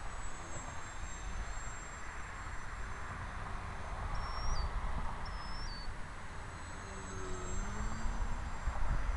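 Foam RC plane's motor humming faintly in flight, its pitch shifting about seven to eight seconds in, under wind rumbling on the microphone. Two short high chirps come about four and five seconds in.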